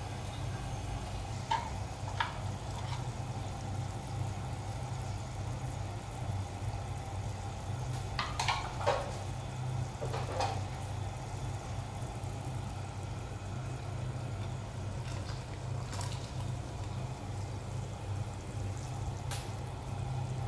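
Water heating in a saucepan on a gas stove under a steady low hum, with a couple of light clicks about two seconds in and a short cluster of clinks and splashes about eight to ten seconds in as turmeric and beans go into the water, then a few faint clicks near the end.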